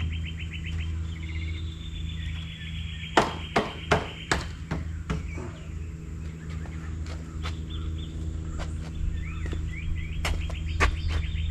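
A series of sharp knocks, several close together in the first half, over a steady low hum, with birds chirping in rapid high trills.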